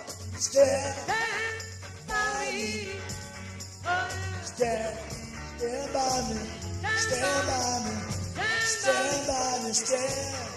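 Band playing a loose rock jam, with a bass line stepping between notes under melody lines that bend in pitch.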